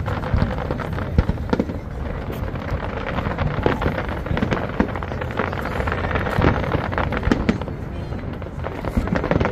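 Aerial fireworks bursting in quick succession: a steady run of bangs and crackles with no break.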